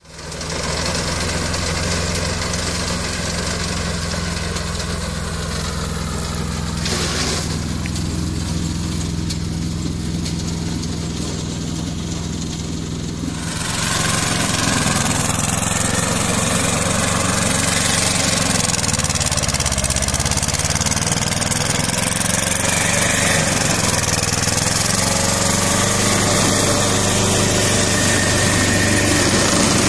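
Compact tractor's Lombardini diesel engine running steadily under load while driving a rear-mounted rotary brush cutter through tall grass. About thirteen seconds in the sound turns louder and brighter, and the engine note dips briefly a few seconds later.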